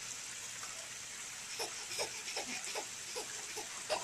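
A baby giggling in a quick run of short laughs, about three a second, over a steady hiss.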